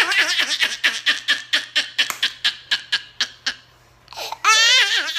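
A woman laughing hard in a fast run of ha's that pauses briefly about four seconds in. The laugh comes back as a high, wavering squeal, followed by more ha's.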